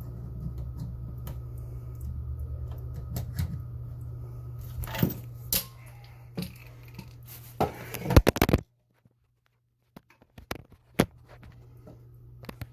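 Scattered clicks and knocks from hand tools and a PEX fitting being handled, over a steady low hum. The clicks come as a loud cluster about eight seconds in, then the sound cuts out completely for about a second before a few more clicks.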